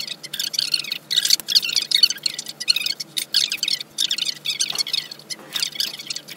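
Small birds chirping busily and continuously, with scattered light metallic clicks from safety-wire pliers twisting locking wire.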